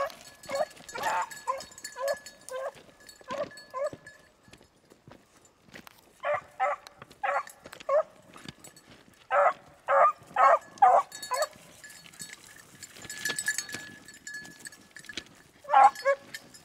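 Pack of beagles baying in short repeated calls, working a rabbit's scent trail. The calls come in clusters, with two pauses of a few seconds, and pick up again near the end.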